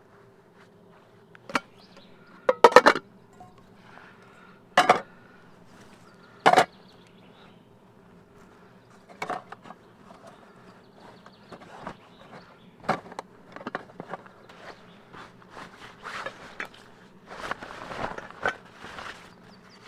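Camp gear being handled and packed: a few sharp knocks in the first seven seconds, then a canvas bag rustling and being handled through the second half. A faint steady buzz runs underneath.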